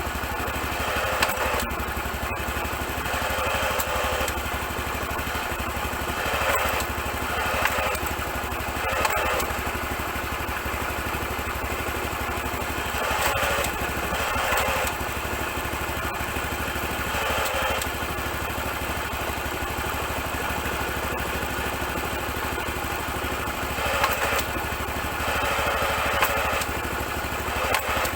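Honda Super Cub 90's four-stroke single-cylinder engine running steadily, with short louder patches of mechanical noise every few seconds and a few sharp clicks. The owner asks what causes an abnormal noise at gear changes and suspects a gear fault.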